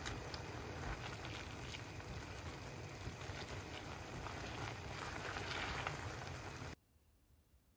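Spaghetti in egg sauce sizzling in a hot pan as it is stirred and lifted with chopsticks, with light scrapes and clicks; the egg is cooking into scrambled curds instead of a creamy sauce. The sound cuts off suddenly near the end.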